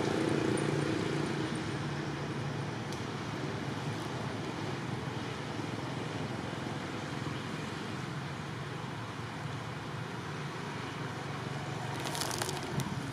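Steady outdoor background noise with a distant engine drone that fades over the first couple of seconds, and a few brief crackles near the end.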